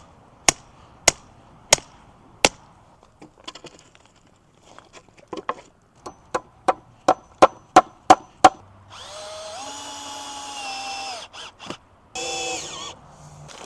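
A series of sharp knocks on wood, slow at first and then quicker, followed by a power drill running for about two seconds and again briefly near the end.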